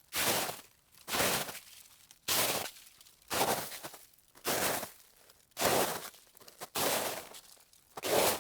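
Slow footsteps crunching underfoot on a loose, gritty surface: eight steps, about one a second, each a drawn-out crunch.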